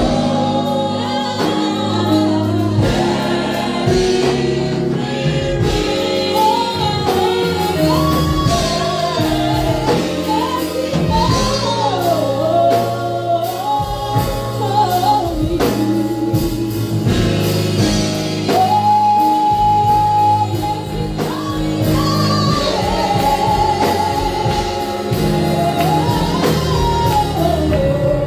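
Gospel worship song: a lead voice singing a melody that bends up and down over a band with bass, keyboard and drums.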